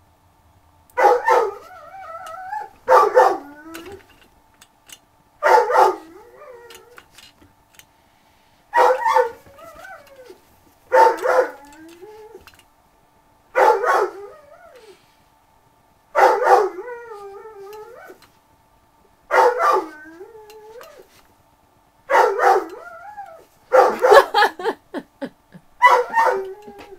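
A man imitating a dog: about a dozen loud barks, two to three seconds apart and closer together near the end. Each bark trails off into a wavering, whining howl.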